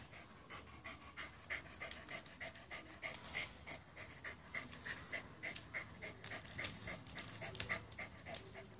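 Corgi panting hard in a quick, even rhythm of about three breaths a second, out of breath from running and playing in water.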